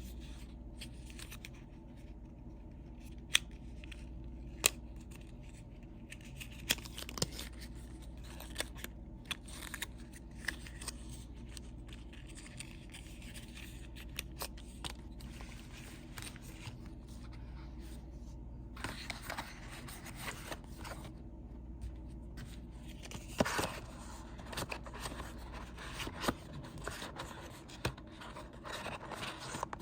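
Handling of the doorbell camera's packaging and parts: scattered sharp clicks and taps, with bursts of rustling and scraping in the second half, over a faint steady low hum.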